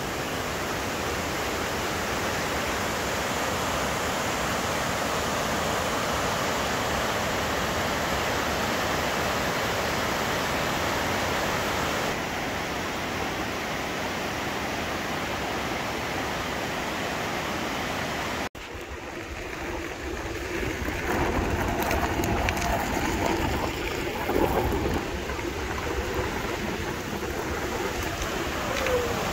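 Fast mountain river rushing over rocks in rapids, a steady even roar of water. After a sudden cut about two-thirds of the way in, the rushing goes on more unevenly, with a stronger low rumble.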